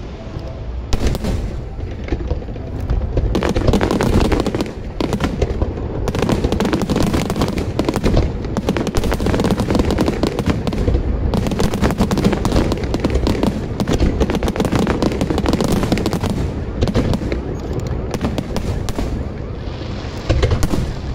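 Aerial fireworks display going off: a dense, unbroken barrage of shell bursts, many sharp bangs and pops overlapping one after another.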